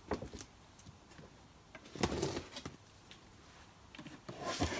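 Cardboard box being worked open by hand. A few light knocks come first, then short bursts of cardboard scraping and rustling about two seconds in and again near the end.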